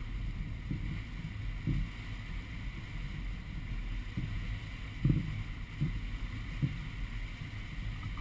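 Powerboat under way: a steady low engine drone mixed with water and wind noise, with a few dull low thumps, the loudest about five seconds in.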